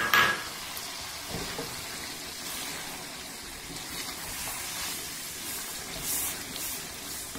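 Chicken pieces frying in oil in a steel pan, a steady sizzle, as tomato paste is scraped in off a wooden spatula and stirred. There is a short loud sound right at the start as the paste goes in, and a few brief scrapes of the spatula later on.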